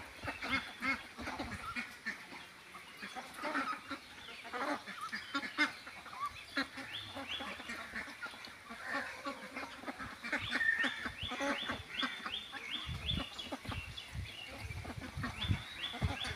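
A flock of domestic ducks quacking and calling over one another, in many short overlapping calls. In the second half comes a run of quick, high, repeated calls, about three a second.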